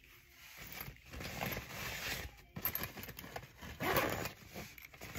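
A bag's zipper being pulled closed in several strokes, amid rustling from the packing.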